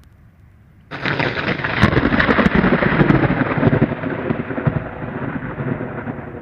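Thunderclap: a sudden crack about a second in, then a long crackling rumble that slowly fades.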